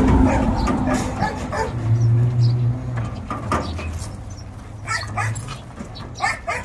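A dog barking and yipping in short repeated calls that come more often near the end, over a low steady hum.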